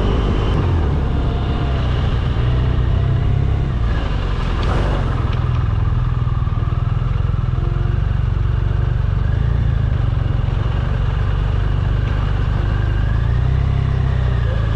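BMW R 1200 boxer-twin motorcycle running steadily under way: a loud, even engine drone with a faint tone that wavers up and down.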